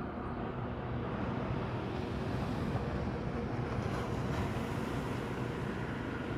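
Small waves washing onto a sandy beach, with wind buffeting the microphone. A faint steady hum sits underneath for the first second or two.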